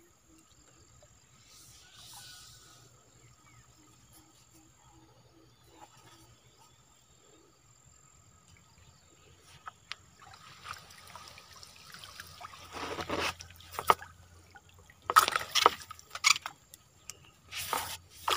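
Water sloshing and splashing as a bamboo lift net is raised out of muddy water: faint at first, then building, with several loud splashes in the last few seconds.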